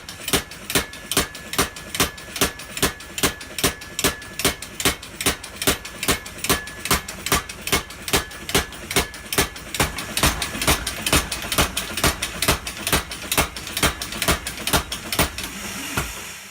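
Custom-built mechanical power hammer running, its ram striking in a steady, even rhythm of about two blows a second over the constant noise of the machine. It cuts off suddenly at the end.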